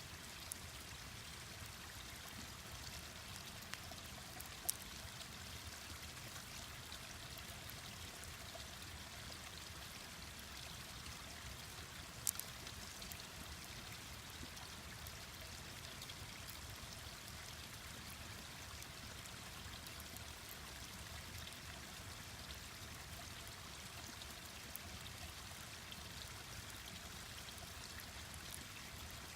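Mountain stream rushing steadily, with a few sharp pops from a wood campfire, the loudest about five and twelve seconds in.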